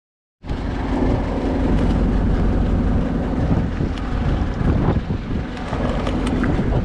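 Fishing boat under way, its engine running steadily with wind buffeting the microphone; it cuts in suddenly about half a second in.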